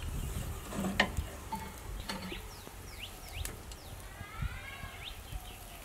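Outdoor ambience: two sharp clicks in the first two seconds, then several short, high, gliding chirping calls from animals, over a low steady rumble.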